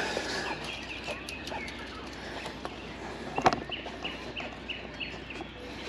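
A bird calling in a string of short, repeated chirps, about two a second in the second half. A single sharp knock about three and a half seconds in is the loudest sound.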